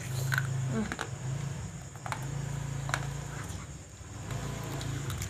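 A person chewing a homemade slab of ironed Milo chocolate, a few sharp crunches about a second apart, over a steady low hum that breaks off briefly now and then.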